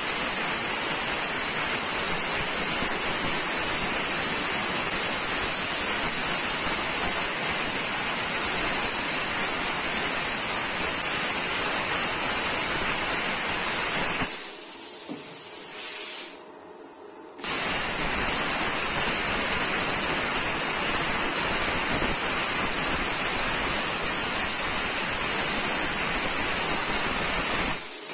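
Resanta IPR-40 inverter plasma cutter cutting through a rusty steel angle: a loud, steady hiss of the compressed-air plasma arc with a high whine. The arc cuts out about fourteen seconds in and stays off for about three seconds, then starts again and runs until just before the end.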